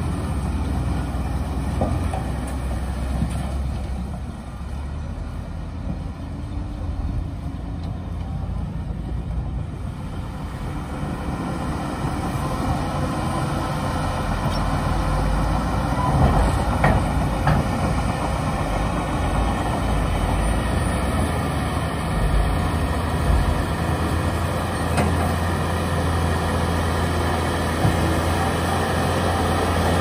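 Heavy diesel engines of dump trucks and a Shantui DH17 crawler bulldozer running steadily as soil is tipped and pushed, with a few short clanks.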